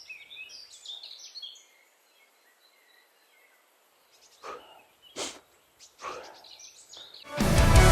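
Small birds chirping and twittering, then three short scuffing sounds a little under a second apart; loud music begins near the end.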